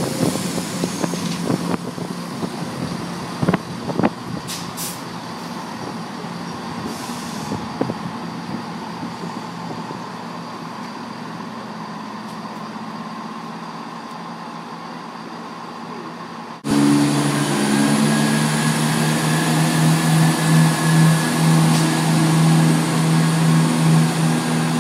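A passing train's wheels click over rail joints and fade into a steady rumble. About two-thirds of the way in there is a sudden jump to a diesel multiple-unit's engines running with a loud, pulsing hum as the train moves off.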